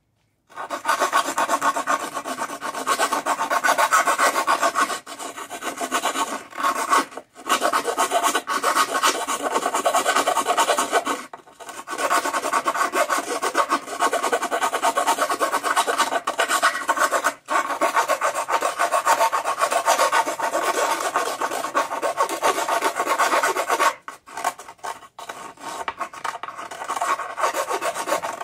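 A hand file rasping with fast, continuous strokes around the edge of a freshly drilled hole in a fiberglass outboard motor hood, cleaning up the opening. The strokes pause briefly a few times and become more broken up near the end.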